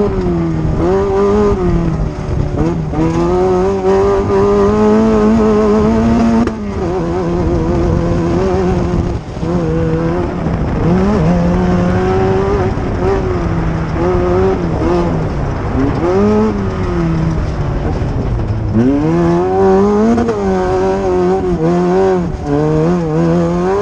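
Off-road race vehicle's engine running hard under throttle, its pitch climbing and falling again and again as it revs up, lets off and picks up again. The sound drops briefly a few times, about six and nine seconds in and again near eighteen seconds.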